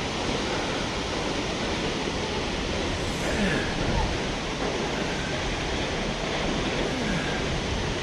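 Multnomah Falls, a tall waterfall, rushing steadily: a constant, even roar of falling water that does not change.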